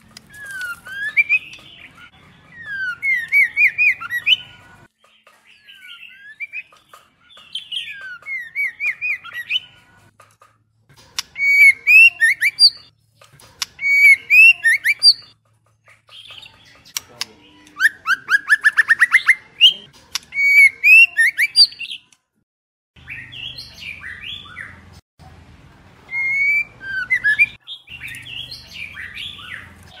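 Female white-rumped shama singing: repeated phrases of short, clear whistled notes that slide up and down, broken by short pauses, with a fast run of rising notes about two-thirds of the way through.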